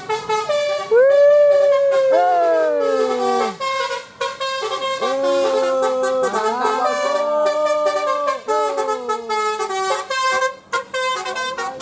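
A tour bus's telolet horn playing a Telolet Basuri tune: several horn tones at once, with long notes that bend and slide down in pitch over rapid short beeps. It breaks off briefly about four seconds in and again near the end.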